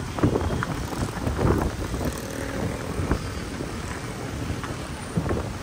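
Outdoor street ambience: a steady low rumble of wind buffeting the microphone, mixed with passing traffic noise.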